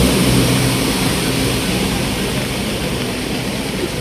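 Steady rushing noise of fast-flowing floodwater on a street, with the low hum of idling vehicle engines that fades over the first second or so.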